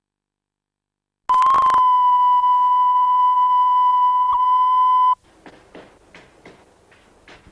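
Steady 1 kHz line-up test tone recorded with colour bars on a videotape. It starts with a short crackle about a second in and cuts off abruptly near the end, leaving faint knocks about three a second.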